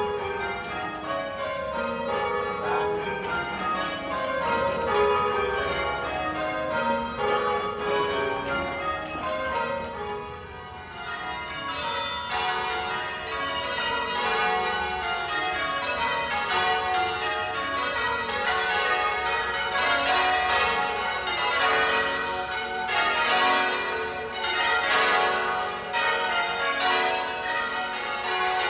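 Church tower bells rung by hand with ropes, ringing rounds: the bells strike one after another in a falling run of notes, the run repeating over and over with a long ring between strokes.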